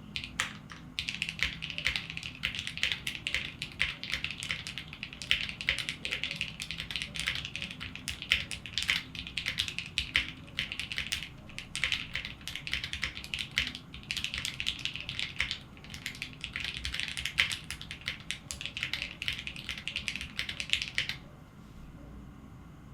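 Typing on a Matrix Lab Corsa mechanical keyboard fitted with Gateron CJ linear switches lubed with 205g0 on stock springs, with plate foam. Rapid, continuous keystrokes clack away and stop abruptly about 21 seconds in.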